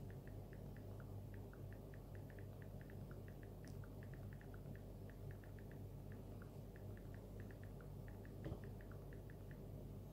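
iPhone on-screen keyboard clicks as a message is typed: a fast, irregular run of short ticks at slightly differing pitches, over a low steady hum. A soft thump about eight and a half seconds in.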